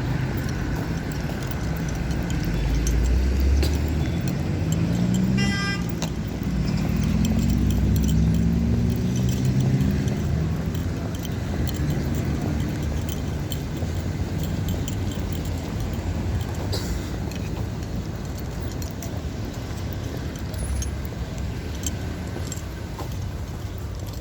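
Street traffic: a motor vehicle engine running and rising in pitch as it accelerates, first about three seconds in and again about seven seconds in. A short horn toot sounds about five and a half seconds in.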